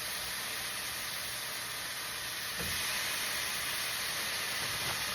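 Bacon strips frying in a hot pan, a steady sizzle that grows a little louder about two and a half seconds in.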